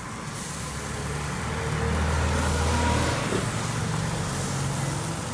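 A motor vehicle's engine going by, growing louder to a peak about halfway through and then fading, over street traffic noise.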